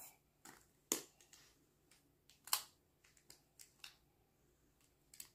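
Translucent plastic magnetic building tiles clicking together as they are handled, set down and snapped into place: about ten light, irregular clicks, the loudest about two and a half seconds in.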